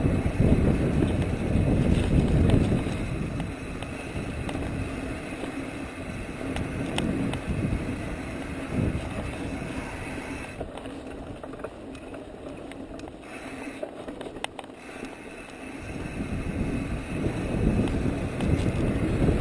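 Wind rushing over the microphone and the tyre noise of a mountain bike rolling down a dirt trail, with scattered knocks and rattles. The rush eases off in the middle and builds again near the end.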